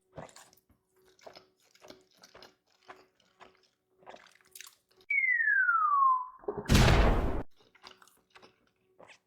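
Edited-in sound effect: one pure whistle tone sliding down in pitch for about a second, then a loud burst of noise lasting under a second. Faint chewing and mouth clicks come before and after it.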